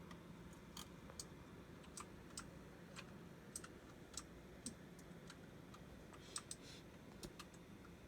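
Faint, irregular clicking of computer keyboard keys, about a dozen scattered presses.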